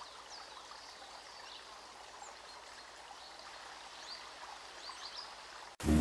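Faint running water with scattered high bird chirps, a nature recording in a quiet stretch of the soundtrack. Just before the end it cuts suddenly to much louder music.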